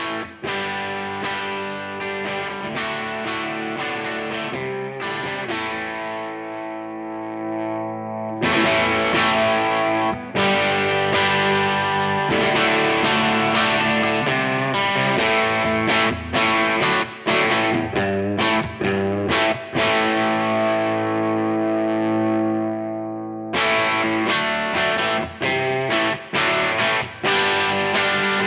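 Electric guitar played through a NUX 63 Diamond AC30-style overdrive pedal into a clean amp with a little reverb: overdriven chords and riffs, some left to ring out. It gets louder about eight seconds in.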